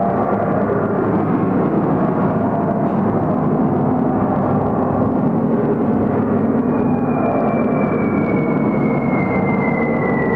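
Recorded air-raid sound effects in a WWII shelter exhibit: a steady rumble of droning aircraft, joined from about six seconds in by a high whistle slowly falling in pitch.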